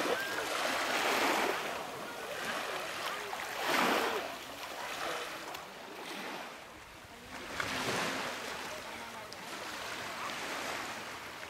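Waves breaking and washing up on a beach, the surf swelling and fading every few seconds, strongest about four seconds in and again near eight seconds.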